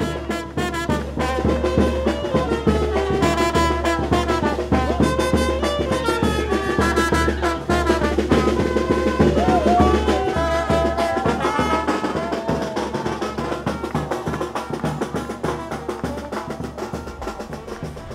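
Brass band music: trombone and other brass carrying a melody over a steady drum beat, fading gradually toward the end.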